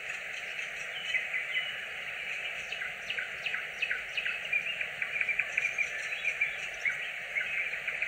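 Nightingale singing: a quick run of sharp clicks, chirps and whistled notes that grows busier after the first few seconds, over a steady background hiss.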